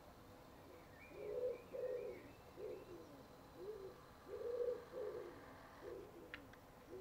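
A pigeon cooing outdoors: two phrases of several low coos each, with the faint chirps of a small bird over the first phrase.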